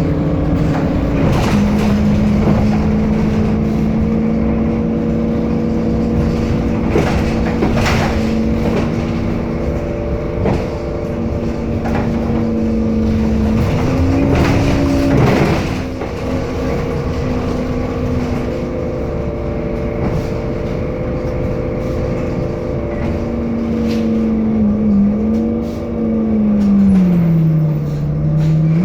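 Temsa Avenue LF city bus with a DAF diesel and ZF Ecolife 6-speed automatic, running in service with a steady drivetrain whine. The whine steps down in pitch about a second and a half in, steps back up about halfway through, and falls away near the end, with occasional knocks and rattles.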